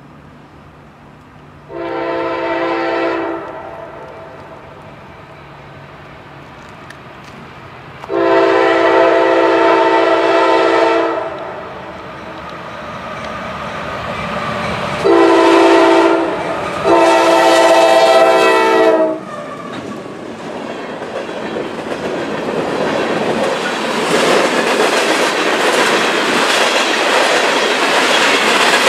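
A freight locomotive's air horn sounds four blasts as the train approaches, long, long, short, long: the signal for a road crossing. Then the train rolls past, its wheels clattering over the rail joints and growing loud from about twenty seconds in.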